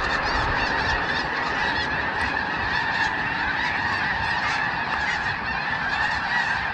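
A huge flock of geese in flight, many birds honking at once in a steady, dense chorus.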